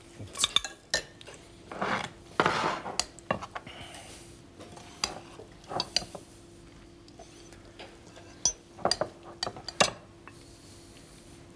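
Metal spoon and fork clinking and scraping against white porcelain plates and a glass salad bowl as salad is served, in short, irregular clinks with quiet gaps between.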